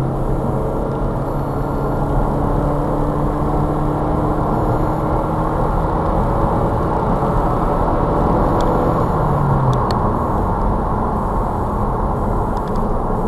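Car on the move: steady road and tyre noise with an even engine hum, which rises slightly and drops away about ten seconds in.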